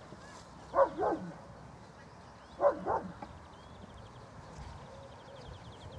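A dog barking: two quick double barks, the second pair about two seconds after the first.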